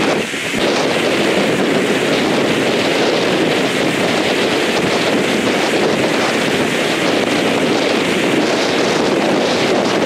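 Strong wind buffeting the microphone in a steady, loud rush, over storm-driven lake waves surging and breaking against a stone seawall.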